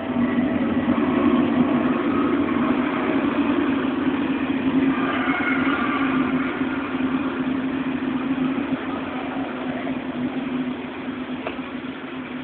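Passenger train running in alongside a station platform: a loud, steady rumble of the coaches on the rails that comes up suddenly at the start and eases off gradually over the second half, with faint high squeals about halfway.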